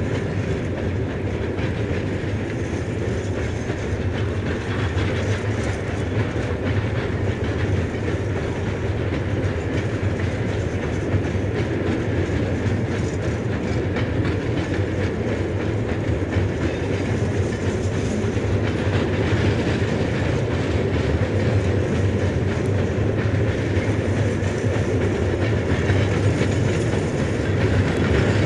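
A recording of a running train played from a vinyl record on a turntable: a steady rumble of the train on the rails, growing a little louder toward the end.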